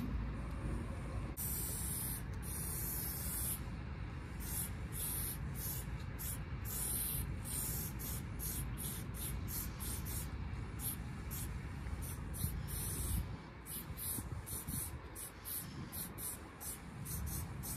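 Aerosol spray paint can hissing as its nozzle is pressed in a rapid series of short bursts, a few held for a second or two. A low rumble runs underneath and eases about two-thirds of the way through.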